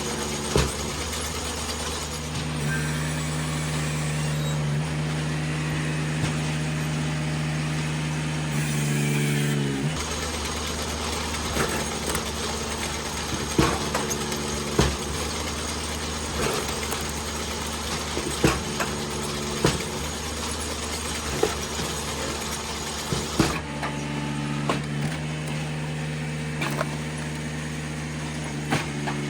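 Eastonmade 37D hydraulic wood splitter running. Twice a steady, deeper hum comes in for several seconds as the splitter works under load, and sharp knocks and cracks of poplar splitting and falling sound throughout.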